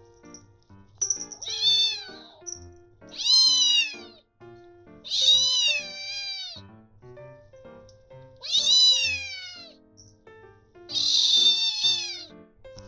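Genetta (Munchkin–Bengal cross) kitten meowing five times, about two seconds apart, each meow high-pitched and rising then falling. It is calling out before its morning meal.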